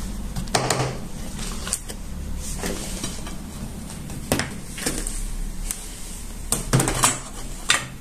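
Metal spoon and bowls knocking and clinking on a table during food preparation: about seven separate sharp knocks spread through, the loudest near the end, with vermicelli rustling as it is mixed by hand near the start. A steady low hum runs underneath.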